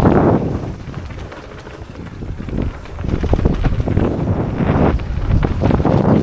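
Wind buffeting the microphone in uneven gusts, loud at the start, dipping for a couple of seconds and swelling again, with light rattling clicks underneath.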